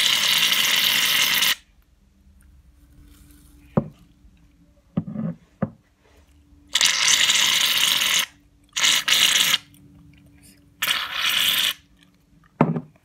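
Aerosol can of shave foam spraying in four hissing bursts, a long one at the start and three shorter ones later, with a few light knocks of the can in between. The can is nearly used up.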